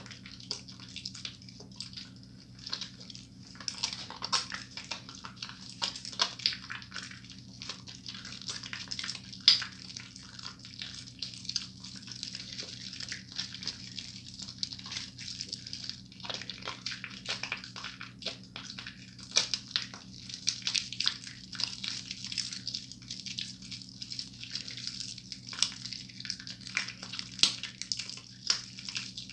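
Wet hands rubbing and squeezing a bar of Moisture Blast soap into a lather: a steady run of small wet squelches and crackling foam, with a low hum underneath.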